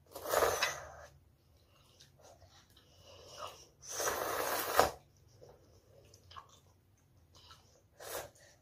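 A child slurping instant ramen noodles, two long airy slurps about four seconds apart, then a shorter slurp near the end.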